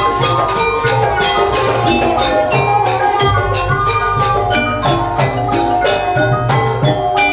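Live Banyuwangi gamelan music for a gandrung dance: struck metal percussion and drums keep a quick, even beat of about three strikes a second under held tones and a sliding melody line.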